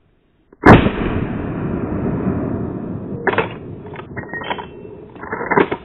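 A single rifle shot from a Winchester .30-30 lever-action, sharp and very loud, about a second in, followed by a long rumble that slowly fades over several seconds. Several shorter, sharper noises break in during the last couple of seconds, the loudest just before the end.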